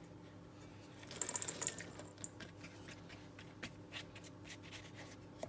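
Walnut pieces tipped from a plastic measuring cup into a stainless steel mixing bowl: a quick run of small ticks about a second in, then scattered faint ticks of the cup and hands.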